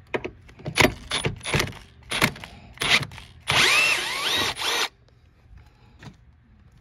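Tools at work on a 10 mm bolt: a string of sharp clicks, then a power driver's motor whirring for about a second and a half with a wavering pitch before stopping suddenly, as the bolt is backed out.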